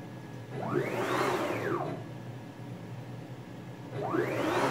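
NEMA 34 stepper motors driving a CNC router's X-axis through two rapid moves, out and back with a pause between, at 1500 inches per minute without losing steps. Each move is a whine that rises in pitch as the axis accelerates and falls as it decelerates; the second starts about four seconds in. A low steady hum lies underneath.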